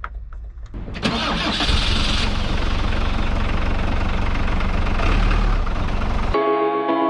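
Camper van engine starting about a second in and then running steadily. Music cuts in near the end.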